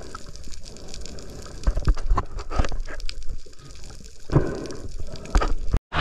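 Underwater sound from an action camera held by a diver: a muffled wash of moving water and bubbling, broken by irregular knocks and clicks as the diver handles a speared fish. The sound drops out abruptly just before the end.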